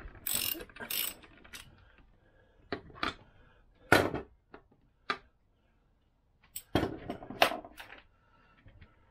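Socket ratchet clicking in quick runs during the first second, as it is worked on the nut on the end of a Vespa PX crankshaft, followed by sharp metal clinks and knocks of tools and parts being handled and set down. The loudest knock comes about four seconds in, with a cluster of clinks around seven seconds.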